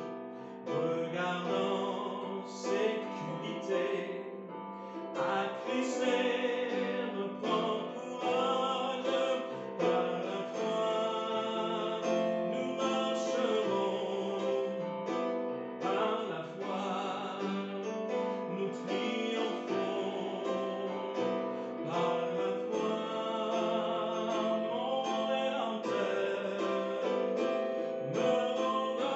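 A man singing a French worship song, accompanying himself on an electronic keyboard with held chords.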